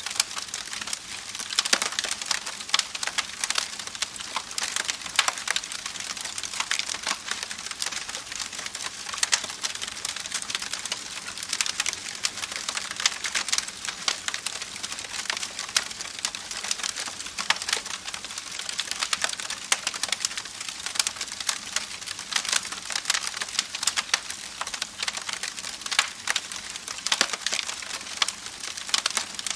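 Campfire crackling: a steady hiss of burning wood with frequent, irregular sharp pops and snaps.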